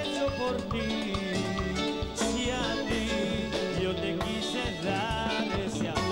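Live band playing a Latin dance song, with accordion, congas, timbales and electric guitar over a steady beat.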